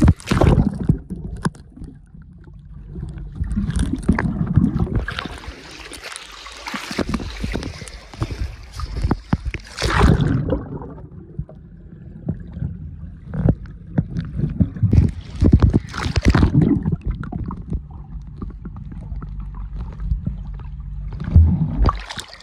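Swimming-pool water splashing and sloshing around a camera that dips below the surface, with muffled underwater gurgling and rumble between irregular splashes.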